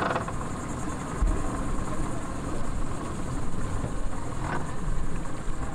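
Yamaha outboard motor idling at low speed as the boat comes in to the dock: a steady, low rumble with no change in pitch.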